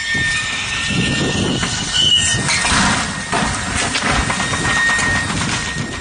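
A truck running, with a steady high whine, a brief squeal about two seconds in, then a run of sharp knocks and rattling clatter.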